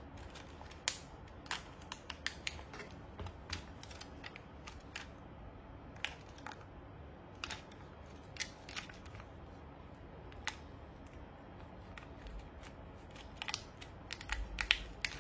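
Irregular light clicks and taps, spaced unevenly, a few to several a second, growing denser near the end.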